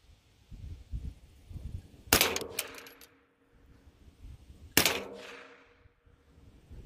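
Two shots from a GSG-16 .22 LR semi-automatic rifle (an MP5-style plinker), about two and a half seconds apart. Each is a sharp crack followed by a short ringing tail. This is slow aimed fire while the rifle is being sighted in.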